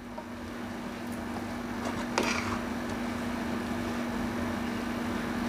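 Metal spoon softly scraping and stirring parboiled rice and chicken in a large aluminium pot, with a light clink about two seconds in, over a steady low hum.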